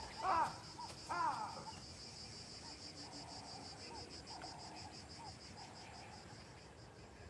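Wildlife ambience: a steady, fast-pulsing insect chirr, with two short arching calls within the first second and a half and fainter calls later.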